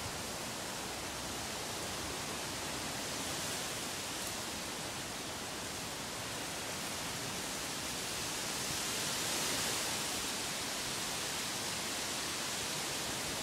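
Strong gusty wind rushing through palm fronds and trees, a steady hissing rustle that swells a little about two-thirds of the way through.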